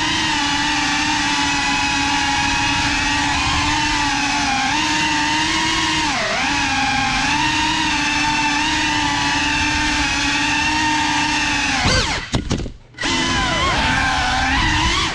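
Small FPV quadcopter drone's brushless motors and propellers whining steadily, the pitch dipping and rising with throttle changes. About twelve seconds in the motors cut out for under a second, then spin back up.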